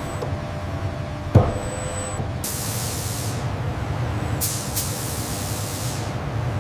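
Robotic paint spray guns hissing in two bursts, the first about two and a half seconds in and lasting about a second, the second starting about four and a half seconds in and running about a second and a half, over a steady low machinery hum. A single sharp clank about a second and a half in is the loudest sound.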